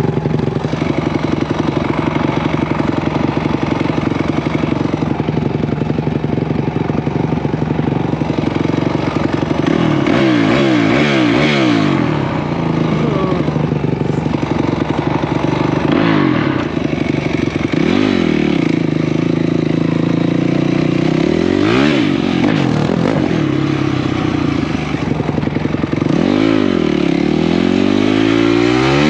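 Single-cylinder off-road racing engines under hard throttle. For about the first ten seconds one engine holds steady at high revs, then it repeatedly rises and drops in pitch as the rider rolls off and gets back on the gas. Near the end a second engine's pitch crosses the first.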